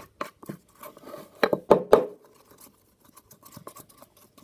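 A spoon stirring and scraping thick homemade slime in a bowl, with shampoo being mixed in: a run of short scrapes and clicks, loudest in a brief cluster about a second and a half in.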